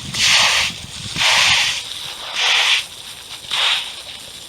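Footsteps through wet mud: four steps about a second apart, each a short hissing swish.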